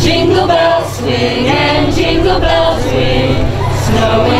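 A choir of voices singing a Christmas carol, with a steady low hum underneath.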